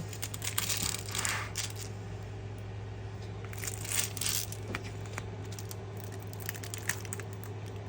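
Small plastic bags of round acrylic diamond-painting drills being handled: the tiny drills click and rattle against each other, with short rustles of the plastic bags.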